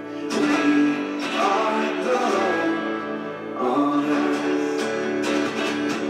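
Recorded song playing, led by strummed acoustic guitar, with faint singing and a few sharp percussive strokes near the end.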